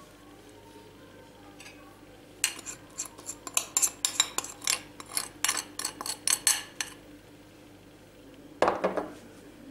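A metal utensil clinking and scraping against a glass bowl in a quick run of strokes lasting about four seconds, scraping thick spice marinade out of the bowl. A short clatter follows near the end.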